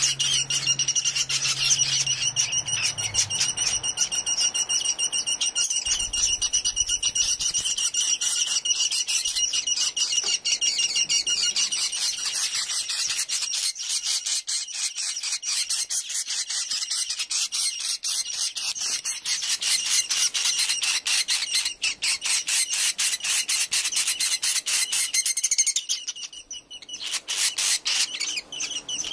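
Swiftlet chicks giving the rapid clicking 'ceklok' call, with a thin high tone under the clicks for roughly the first dozen seconds before it fades. It is the begging call of hungry chicks asking the parent birds to feed them.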